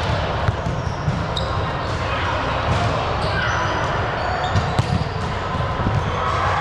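Indoor court game: many short high sneaker squeaks on the floor, a couple of ball thuds, and players' voices throughout.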